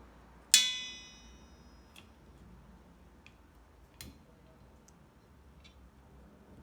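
A sharp metallic clink about half a second in that rings on for about a second as it fades, followed by a few faint clicks, one a little louder near the four-second mark.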